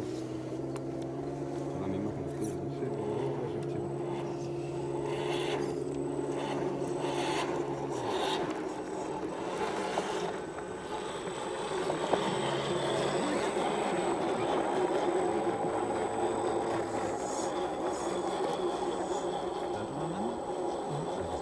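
Electric motor and geared drivetrain of a 1/10-scale RC rock crawler whining steadily as it crawls over dirt and stones, the whine dropping out about eight seconds in and coming back a few seconds later with the throttle. Tyres scrape and crunch on gravel for a few seconds around the middle.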